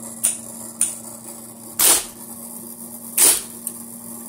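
IBM Selectric II electric typewriter making five separate mechanical clacks over a steady low hum. Two louder, longer clacks come about two seconds and three and a half seconds in.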